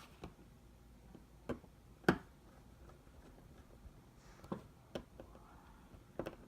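Sparse light clicks and ticks of a small precision screwdriver driving tiny screws into an iPhone 6's metal thumb-scanner bracket, with one sharper click about two seconds in.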